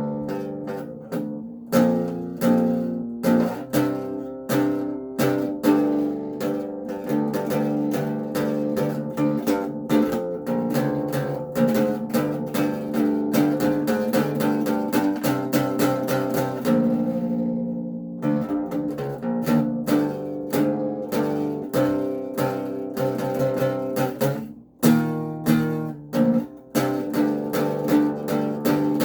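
Acoustic bass guitar played solo: a continuous run of plucked notes in a steady rhythm, with a brief drop-out about 25 seconds in.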